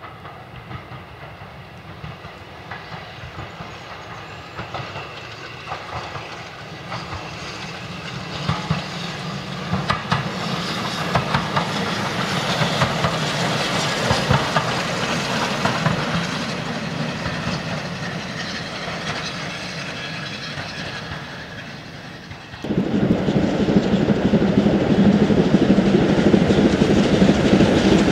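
GWR steam railmotor No. 93 running past, its wheels clicking over the rail joints, growing louder, peaking about halfway through and fading away. A sudden cut near the end brings in a louder, steady rushing noise.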